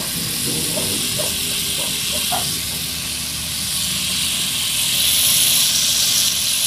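Boiled goat meat with onion and garlic frying in hot oil in an aluminium pot: a steady sizzling hiss that grows louder about two-thirds of the way through, with a few light stirring scrapes in the first couple of seconds.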